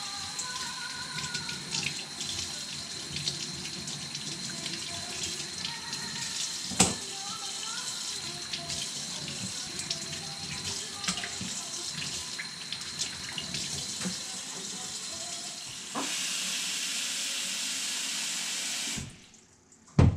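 Tap water running into a sink, with scattered small clinks and a sharp knock about a third of the way through. Near the end the flow becomes a steadier, stronger rush, then is shut off about a second before the end, followed by a loud knock.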